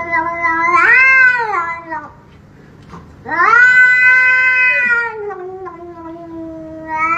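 Grey cat yowling in long drawn-out meows as a hand reaches toward its head: one that rises and falls about a second in, a longer one of about three seconds starting about three seconds in that slides down in pitch, and another starting near the end.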